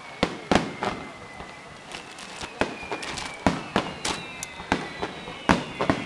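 Aerial fireworks bursting: an irregular run of a dozen or more sharp bangs and pops, the loudest about a quarter second and half a second in and again about five and a half seconds in.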